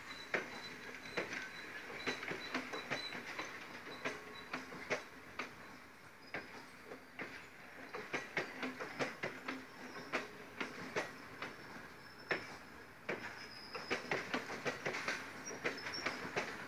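Passenger coaches of a shunting train rolling slowly past at close range, wheels clicking and knocking over the rail joints at an uneven pace under a faint steady hum. A faint thin whine sounds in the first few seconds, and the clicks grow denser near the end.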